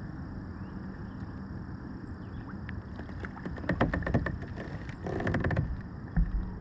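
A hooked bass thrashing and splashing at the water's surface beside a fishing kayak as it is brought to the boat: a run of sharp splashes starting about three seconds in, a second dense burst near the end, then a low thump.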